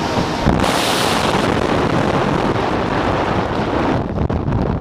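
Loud rush of wind on a skydiver's camera microphone as the jumper leaves the open cargo ramp of a turboprop transport plane and drops into freefall. The hiss gets brighter about half a second in and turns uneven and buffeting near the end.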